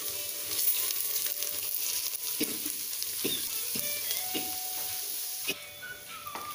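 Split yellow lentils (dal) sizzling as they are poured into hot oil with whole spices in a pressure cooker and stirred to roast. Several knocks of the stirring against the pot come in the middle.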